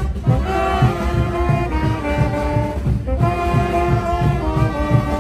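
Brass band playing lively music in the frevo style, with trumpets, trombones and saxophones holding bright notes over a fast, steady drumbeat. The band breaks off briefly about three seconds in.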